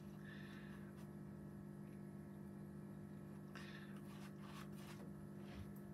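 Quiet room tone with a steady low hum, and a few faint, brief soft rustles.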